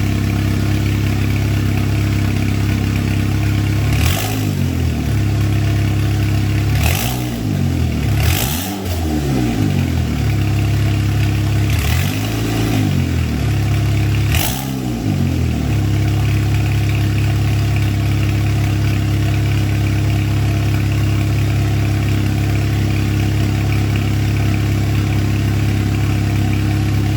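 Turbocharged 2004 Chevrolet Cavalier's four-cylinder engine idling, revved in five quick throttle blips, each rising and falling back to idle, over the first half, then idling steadily.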